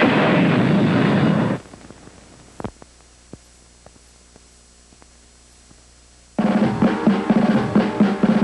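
Cartoon theme music that cuts off suddenly about a second and a half in, leaving a quiet hiss with a few faint clicks; about six seconds in, loud drum-led music starts up again.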